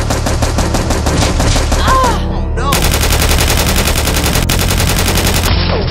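Rapid automatic machine-gun fire sound effects, many shots a second in continuous bursts, laid over a steady low music bed.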